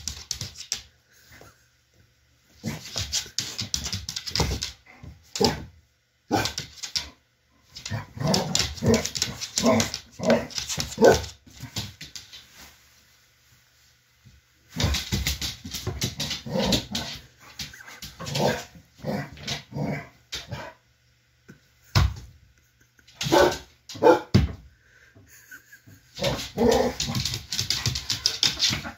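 Pit bull-type dog barking and whimpering in repeated bursts as it noses and pushes into a fabric bean bag chair, with the cover rustling.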